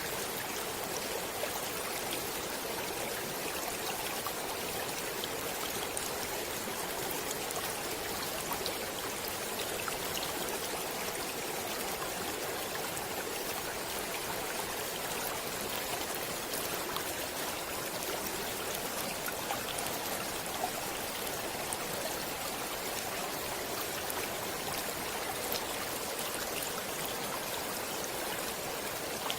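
Stream water running in a steady, even rush, with faint small splashes throughout.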